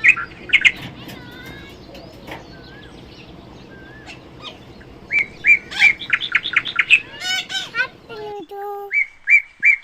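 Young parrots chirping: a few sharp chirps at the start, then a fast run of repeated high chirps in the second half with a short rattling trill. A steady low background hum cuts off suddenly near the end.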